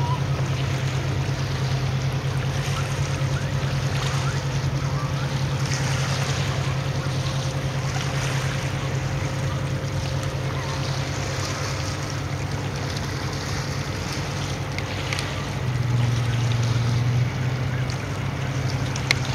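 A ferry's engines drone steadily and low, with wind and water noise over them. The drone swells briefly near the end, and a single sharp click comes just before it ends.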